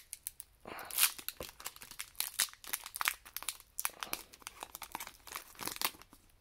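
Foil wrapper of a Pokémon trading-card booster pack crinkling as it is torn open by hand: a dense run of irregular crackles, with a louder crackle about a second in.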